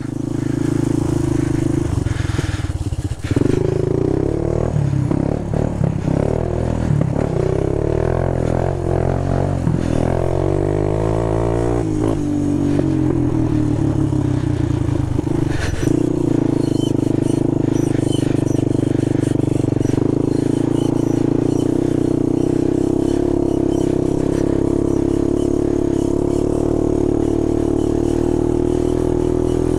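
A 250 ATV engine running under a rider, its revs rising and falling through the first half and then holding steady. Brief clattering knocks come about three seconds in and again near the middle.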